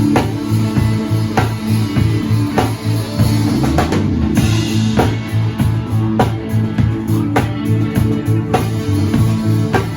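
Live rock band playing a Nepali rock song: drum kit keeping a steady beat under bass and electric guitar.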